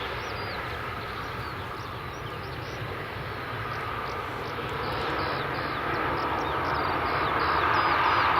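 The jet engines of an Airbus A319-112 (CFM56) run with a steady rumble that swells toward the end. From about five seconds in, a small bird chirps over it, again and again in quick short calls.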